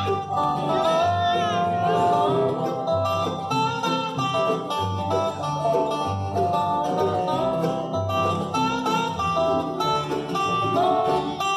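Bluegrass band playing live: acoustic guitars, mandolin, fiddle and upright bass together in a steady, continuous run of music.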